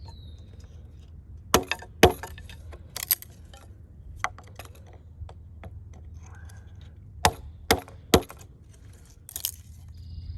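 Axe splitting firewood: about seven sharp cracks of wood being struck and split, irregularly spaced with pauses between them.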